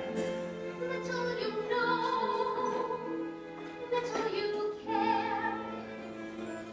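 Pit orchestra of a stage musical playing a slow passage of sustained notes that change every second or so.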